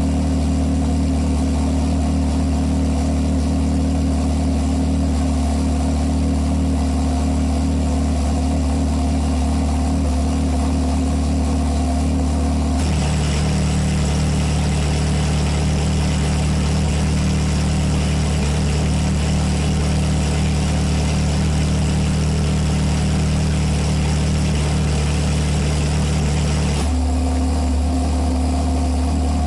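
Ferrari 360's 3.6-litre V8 idling steadily through an MS-Racing Ver.4 aftermarket exhaust. About 13 seconds in the tone shifts lower with an added hiss, then it returns to the first idle sound near the end.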